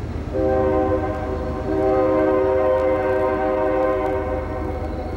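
Diesel locomotive air horn sounding a multi-note chord: a shorter blast followed by a longer one of about two and a half seconds, over a low steady rumble of the approaching train.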